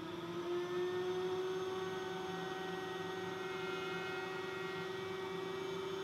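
Router in a router table running at a steady speed, a steady high-pitched hum, while a flush-trim bit notches an MDF speaker-adapter ring.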